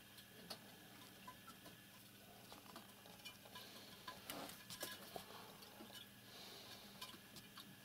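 Near silence with faint, scattered ticks and rustles: a cat stepping over loose papers and books on a cluttered shelf.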